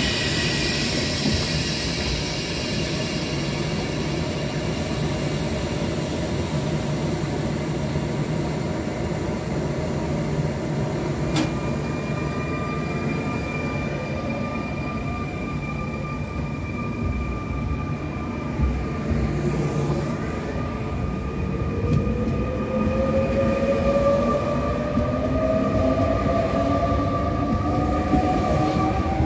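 Z2N double-deck electric multiple unit pulling along the platform with a steady rumble and a thin steady whine. From about two-thirds of the way through, its electric traction whine rises in pitch and grows louder as it gathers speed.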